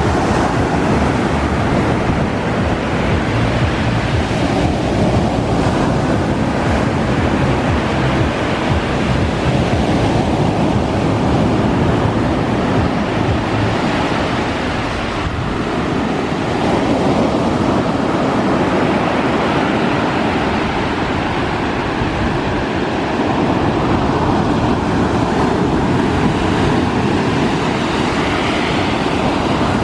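Rough sea surf crashing in a continuous wash of noise, with wind buffeting the microphone.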